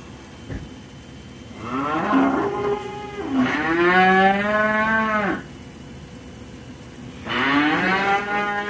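Cows mooing loudly: a long, drawn-out moo begins about two seconds in, swelling to its loudest midway, and another long moo begins near the end.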